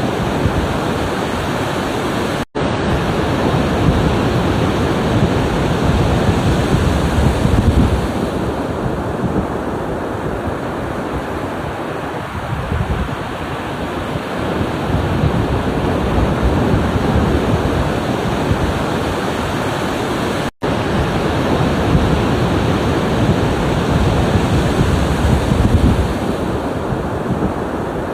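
Ocean surf washing in continuously, swelling louder twice as waves break. It cuts out to silence for a split second twice.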